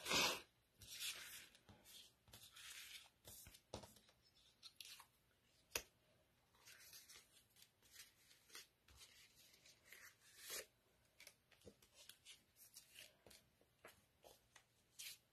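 Faint rustling and light tapping of paper and cardstock being handled, as paper tags are shuffled and laid onto a card base, with one sharper tap about six seconds in.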